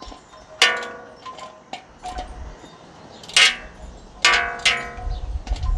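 Hand tools clanking against metal parts of a mini bike's frame during a teardown: four sharp metallic strikes that each ring briefly, one about half a second in and three in the second half, with lighter clicks between them.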